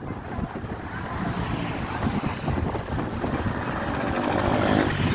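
Wind buffeting the microphone over the rumble of a moving vehicle's engine and road noise, growing gradually louder.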